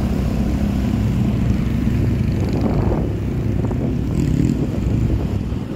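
Vehicle engine running steadily with a low rumble as it travels along a road.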